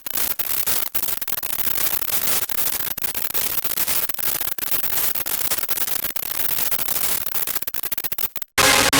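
Xfer Serum 2 synthesizer noise preset playing a harsh, crackling static texture, chopped by short dropouts that stutter faster toward the end. It cuts off about eight and a half seconds in. A louder, bass-heavy preset then starts right at the end.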